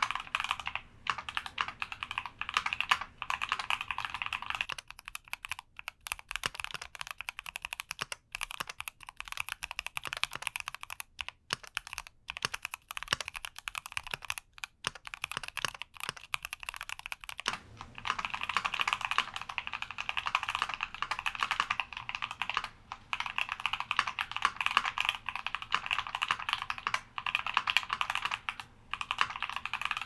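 Continuous typing on a stock Keychron Q60 mechanical keyboard with a gasket-mounted aluminium case and Gateron G Pro Red linear switches: a dense, steady run of keystroke clacks. The recording is from a camera mic, switching to a stereo recorder for a stretch in the middle, where the low end drops away.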